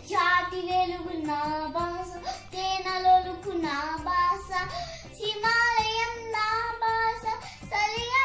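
A young girl singing a Telugu song solo, in long held notes that bend up and down in pitch between phrases.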